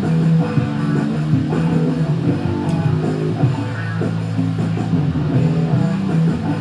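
Background music: a guitar-led instrumental with a bass line, playing at a steady level.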